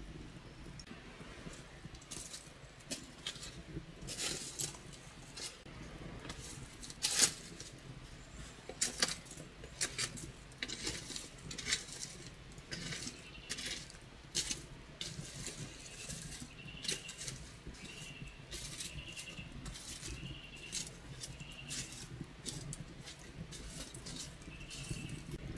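Wood campfire crackling, with irregular sharp pops and snaps, one loud pop about seven seconds in. In the second half a short high whistling tone repeats every second or so.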